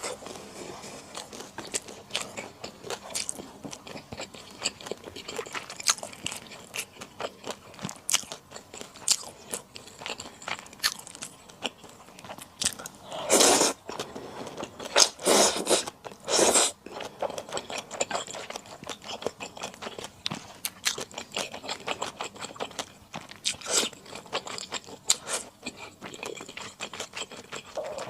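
Close-miked eating of rosé buldak flat glass noodles: steady chewing and biting made of many small wet clicks, with a few louder, longer bursts a little past the middle.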